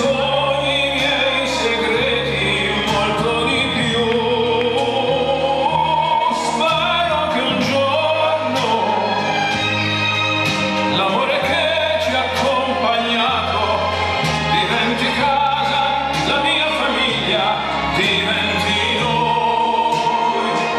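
Recorded song with a singing voice over instrumental backing and a steady bass line.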